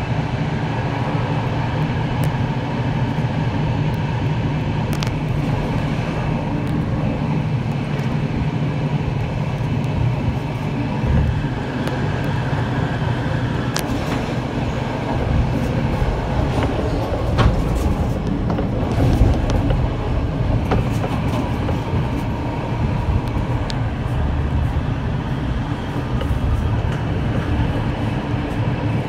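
Passenger train hauled by SA137 diesel railbus, running along the track, heard from on board: a steady low rumble and drone of wheels on rail and running gear, with scattered sharp clicks.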